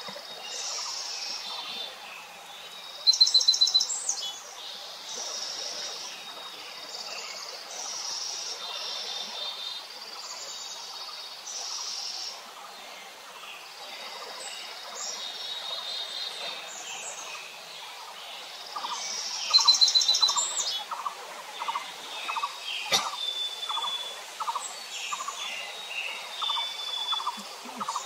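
Several wild birds singing and calling, a chorus of short high phrases, with two loud rapid trills, one about three seconds in and one about twenty seconds in. From about two-thirds of the way through, a lower note repeats steadily, and a single sharp click is heard near the end.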